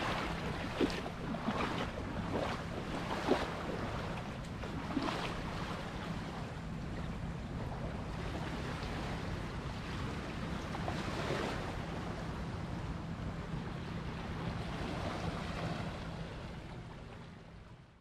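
Small lake waves lapping and splashing irregularly on a stony shore, with wind buffeting the microphone. The sound fades out near the end.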